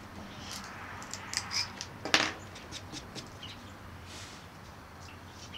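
Small clicks and taps of a glue bottle and wooden clothespins being handled on a wooden board, with one sharper click about two seconds in, over a low steady hum.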